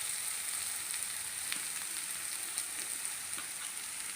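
Onions and tomatoes frying in coconut oil in a pan: a steady sizzling hiss with a few small scattered pops.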